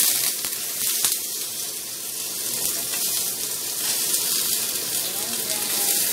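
Whole fish sizzling steadily as it fries in hot oil in a frying pan, with one light knock about a second in as the spatula works it.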